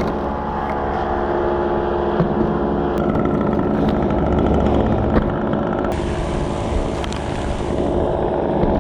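An engine running steadily at an even speed, its tone shifting slightly about three seconds in and again about six seconds in.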